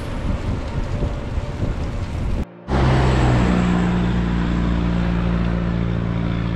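A rough, noisy rumble that cuts off suddenly about two and a half seconds in, followed by a vehicle engine running at a steady pitch.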